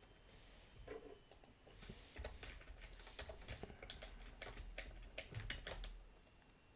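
Typing on a computer keyboard: quiet, irregular keystrokes that stop about six seconds in.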